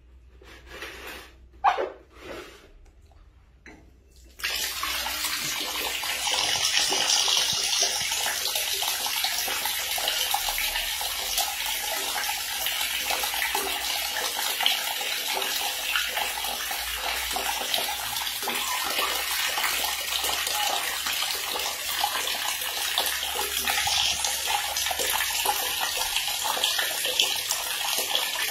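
A few light knocks, then about four seconds in, water starts running steadily from a tap and pouring into a tub, a constant hissing splash.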